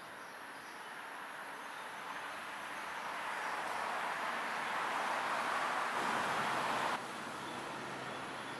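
Rushing noise of a passing vehicle, growing steadily louder over several seconds, then cutting off abruptly about seven seconds in.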